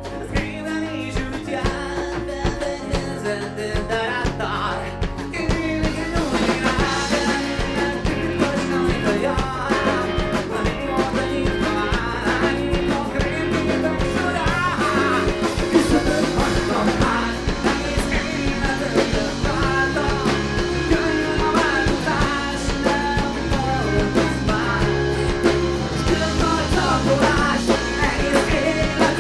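A live rock band playing a song: a singer over guitar and drum kit.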